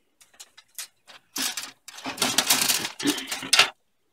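Hard plastic model-kit sprues clicking and clattering against each other and a cardboard kit box as one is lifted out: a few light clicks, then about two seconds of louder rattling and scraping that stops suddenly.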